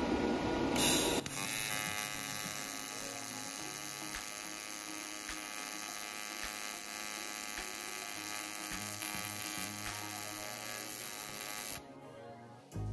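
AC TIG welding arc from a Taiwan Power TIG-200ADP inverter welder set to no-pulse, arc-shaped (soft) AC waveform: a steady, even buzz that cuts off shortly before the end as the arc is broken. This waveform is meant to give a gentler arc sound than square-wave AC.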